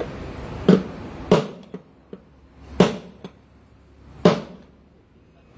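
Hammer striking a steel punch to drive the rear drum bearing out of a washing machine's plastic tub hub: four sharp knocks, unevenly spaced, with a few lighter taps between.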